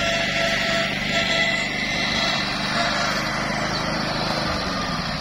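Engine of a homemade flail-shaft grass cutter running steadily, with one tone sliding down in pitch near the end.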